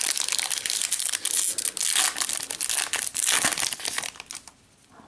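Crinkling of a foil Yu-Gi-Oh! Maximum Gold booster pack wrapper being handled, a dense rustle that lasts about four and a half seconds and then stops.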